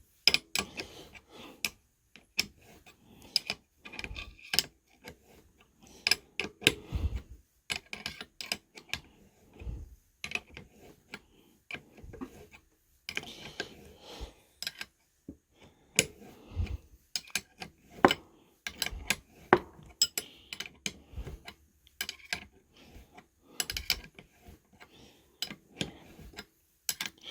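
Irregular metal clicks, taps and clanks of hand tools working on a Suzuki Sidekick front differential housing while the carrier is being freed from the case.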